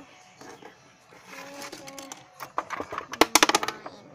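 Plastic toy dollhouse pieces clicking and knocking as they are handled, with a quick cluster of sharp clicks about three seconds in.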